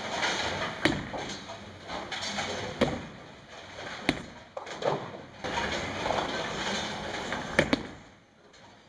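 Bowling alley noise: bowling balls rolling down the lanes and crashing into pins, with several sharp knocks of balls landing and striking. One sharp knock comes about four seconds in as a ball is released onto the lane.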